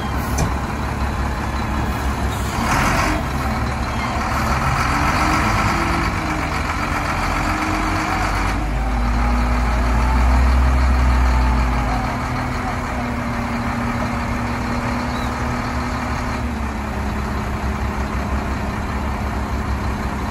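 Heavy wheel loader diesel engine running and revving up, with a deep rumble that builds to its loudest about ten seconds in and eases back at about twelve seconds.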